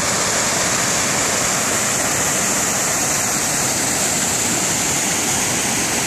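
Small waterfall pouring over a rock ledge into a pool, with the stream rushing over rocks below it: a steady rush of water.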